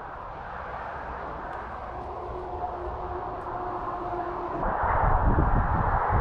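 Highway traffic: road noise that builds steadily, with a faint steady hum, until a vehicle passes loudly with a deep rumble about five seconds in.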